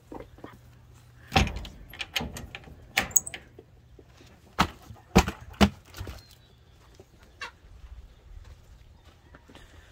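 Chickens in a coop with about six sharp knocks and clatters over the first six seconds, the loudest about a second and a half in.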